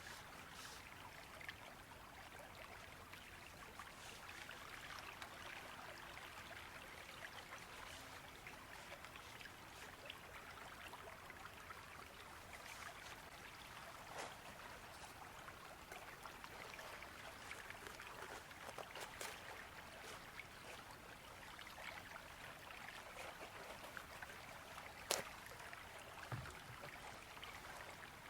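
Faint, steady rush of a flowing river, with a few scattered sharp clicks, the loudest near the end.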